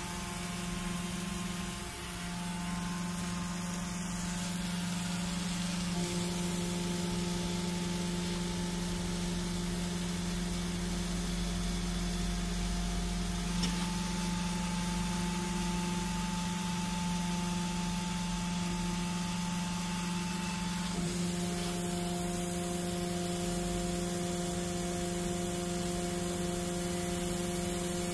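Laser cutting machine at work on clear acrylic: a steady hum and hiss with several machine whines layered on top. The whines switch and change pitch every several seconds as the head's motors change their moves.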